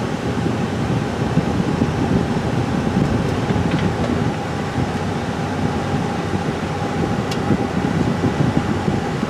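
Steady road and engine noise inside the cabin of a moving vehicle, even in level throughout.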